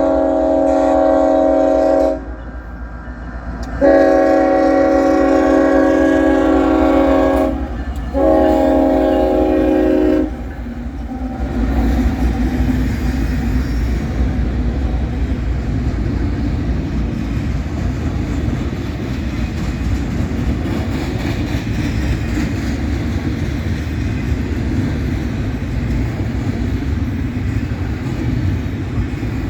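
Freight locomotive's multi-chime air horn sounding three blasts, the middle one longest, then the train rolling past with a steady heavy rumble and wheels clacking over the rail joints.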